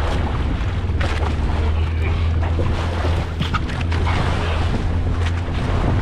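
Fishing boat's engine running steadily with a low hum, while wind buffets the microphone and sea water splashes now and then.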